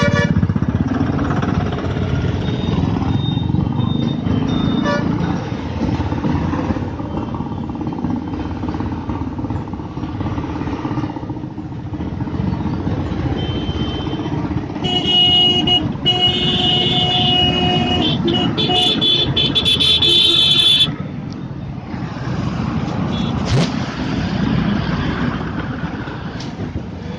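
Motorcycle engine and road rumble while riding slowly through a traffic jam, with other vehicles running close by. Vehicle horns honk repeatedly for several seconds past the middle.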